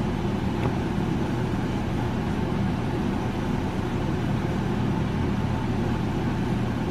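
Steady low hum of background noise, even throughout, with one faint tap about two-thirds of a second in.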